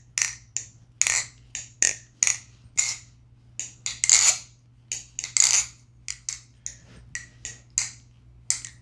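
MachineWise Mayrn Lite balisong being flipped: short, sharp metallic clicks, about two to three a second in an uneven rhythm, as the handles swing round the tight pivots and knock closed.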